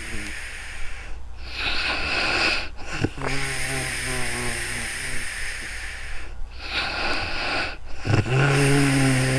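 A woman snoring in her sleep: two drawn-out, buzzing snores about five seconds apart, each lasting about two seconds, with a rushing breath between them.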